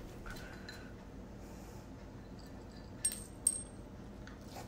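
Two light metallic clinks with a brief high ring, about three seconds in and a bit under half a second apart, from a Shih Tzu eating dry kibble out of a stainless steel bowl.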